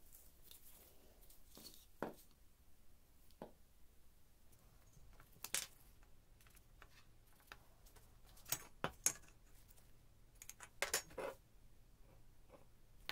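Faint, sparse clicks and light knocks with quiet stretches between, from steel square tubing, a metal square ruler and a marker pen being handled and set down on a foam mat. The clicks come singly or in small clusters, busiest in the second half.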